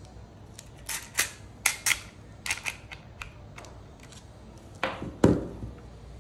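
Small sharp metallic clicks and taps as a spring guide and spring are pushed into an airsoft V3 gearbox with a screwdriver, several in quick succession. Near the end come two heavier knocks, the last the loudest, as the metal gearbox shell is handled.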